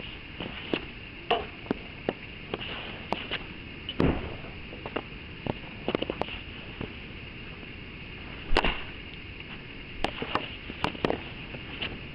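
A series of sharp knocks and clacks at irregular intervals, the loudest about four seconds and eight and a half seconds in, over a faint steady hum.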